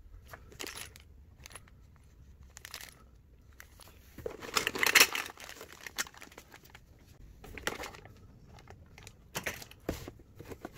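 Clear plastic bags crinkling and cardboard rustling as bagged metal rods are handled and lifted out of a cardboard box, in several short bursts, the longest and loudest about halfway through.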